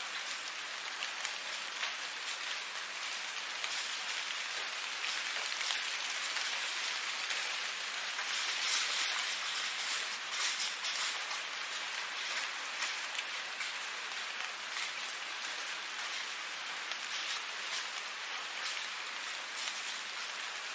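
Steady rain falling: a dense, even hiss full of small individual drops ticking close by, swelling slightly heavier around the middle.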